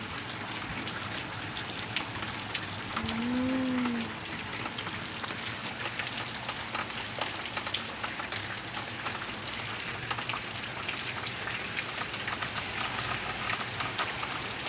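Heavy rain falling steadily, with many individual drops pattering on surfaces and puddles. About three seconds in there is a brief low hum that rises and falls in pitch.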